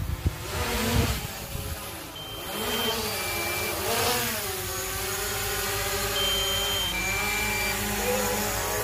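Folding quadcopter drone's propellers whining overhead, the pitch rising and falling as it manoeuvres, otherwise steady. A few knocks and handling bumps in the first second or so.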